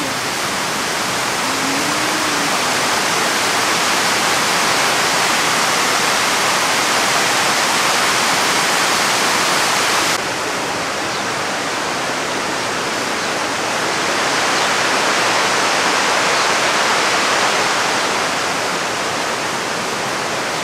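Steady rushing hiss of water pouring over a stepped fountain cascade into a pool. About ten seconds in it changes abruptly to a slightly duller, softer steady rush.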